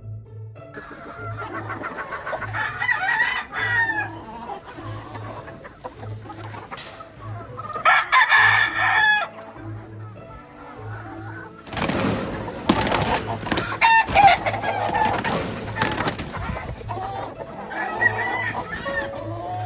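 Gamefowl roosters crowing several times, with clucking between crows, over background music with a steady bass beat. A stretch of rushing noise comes in past the middle.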